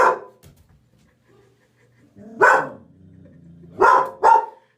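A dog barking: one bark at the start, another about two and a half seconds in, then two quick barks in a row near the end.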